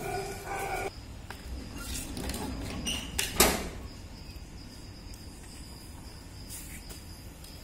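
Green plastic bucket knocked against a stone floor by a kitten nosing into it, with one sharp knock about three and a half seconds in.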